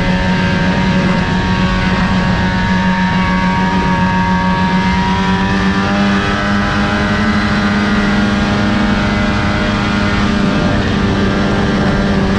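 Snowmobile engine running steadily as the sled travels along a trail, its pitch edging up slightly about halfway through.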